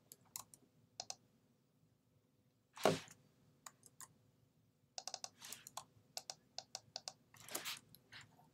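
Soft computer-keyboard typing in short runs of keystrokes with scattered clicks, a quick run of keys about five seconds in. A single duller, louder sound comes about three seconds in.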